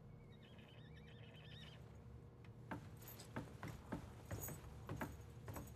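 Quiet footsteps on a wooden floor, starting about halfway through as soft irregular knocks, with the light metallic jingle of armour plates on some steps.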